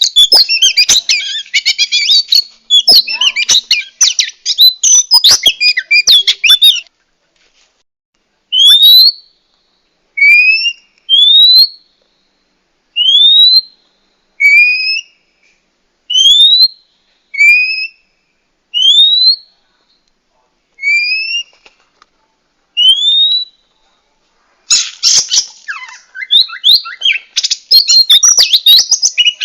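Female oriental magpie-robin calling: a fast, scratchy run of chattering notes, then a slow series of upward-sliding whistles about one a second, alternating lower and higher, then fast chattering again near the end.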